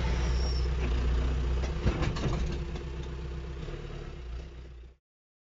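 Diesel tractor engine running steadily, heard from inside the cab, with a few sharp knocks about two seconds in as manure is loaded onto the spreader. It fades and cuts off about five seconds in.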